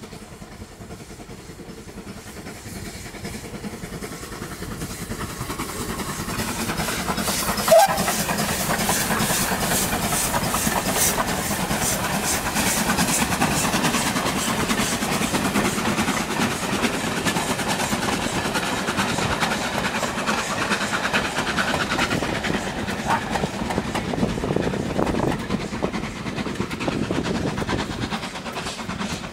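Steam locomotive hauling a train of coaches past. Its sound builds from about five seconds in, with a regular beat and wheel clatter as the coaches go by, and eases off near the end as it moves away. A short sharp sound stands out about eight seconds in.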